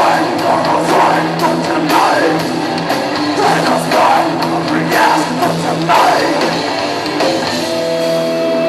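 Live rock band playing with electric guitars and a lead vocalist singing. Near the end a single note is held steadily.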